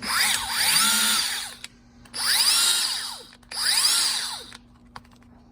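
Snap-on 14.4 V brushless cordless tool run three times in quick short bursts, its motor whining up to speed and winding down after each trigger pull.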